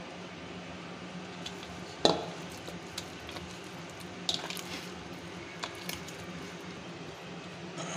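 Oiled spinach dough squished and kneaded by hand in a stainless steel bowl, with several sharp knocks against the bowl, the loudest about two seconds in.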